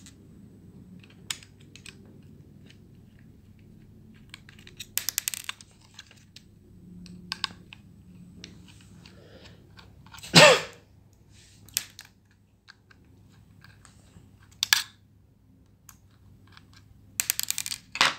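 Small metal clicks and rattles as a screwdriver works the screws out of a laptop hard drive's metal caddy. There is a short cluster of clicks about five seconds in, one louder brief sound sliding down in pitch about ten seconds in, and a burst of quick clicks near the end.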